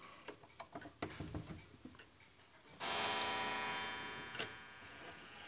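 Wall clock chime movement: small clicks and ticking as the minute hand is turned by hand, then about three seconds in a chime rod is struck once and rings, fading slowly.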